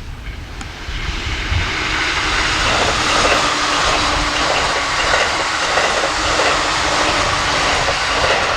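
Electric train passing close by. It swells up about a second in into a loud, steady rushing noise with a rhythmic wheel clatter about twice a second.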